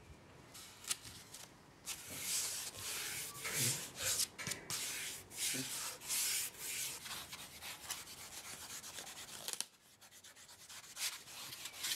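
Packing tape being laid onto a foam wing and rubbed down by hand: a run of dry rubbing and scraping strokes, quieter for the first couple of seconds and dying down near the end.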